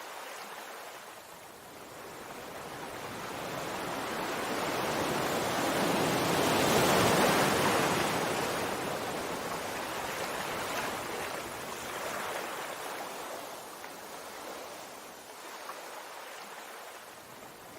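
Sea surf: a wave swells from about two seconds in, is loudest a little before the middle, and slowly washes back out.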